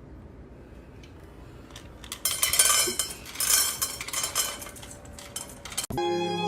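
Clinking and clattering of hard objects, like tableware, starting about two seconds in and lasting a few seconds. Just before the end it cuts to music led by a violin.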